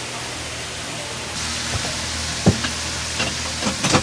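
Spiral-cut raw potatoes on wooden skewers deep-frying in hot oil, a steady sizzle that grows louder and brighter about a second and a half in. A few sharp clicks come in the second half.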